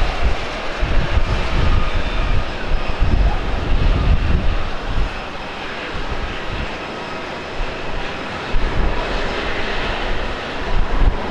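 Jet engines of a Boeing 777-300ER, its GE90 turbofans, running as the airliner moves along the runway, heard from afar as a steady roar with an uneven low rumble underneath.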